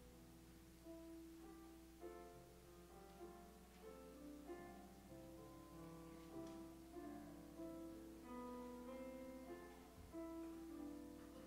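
Faint, slow instrumental hymn music on a keyboard, held chords changing every second or so, as the introduction to a choir hymn.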